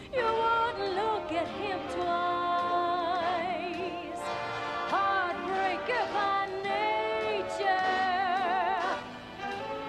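Soundtrack music with a singing voice carrying the melody, its held notes wavering and sliding between pitches.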